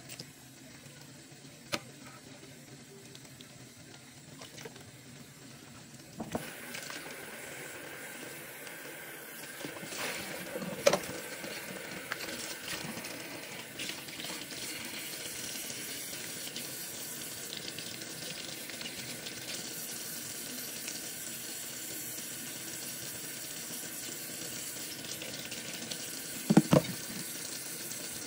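Kitchen tap running into a stainless steel sink as shrimp are rinsed; the water gets louder about six seconds in. A few short clicks along the way, and a loud double knock near the end.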